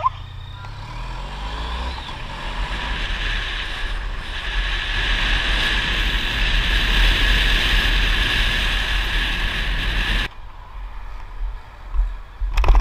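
Honda ST1300 motorcycle riding along with heavy wind noise on the mounted camera's microphone. The engine pulls away at the start and the wind rush builds steadily. It drops away suddenly about ten seconds in, and a short loud burst comes near the end.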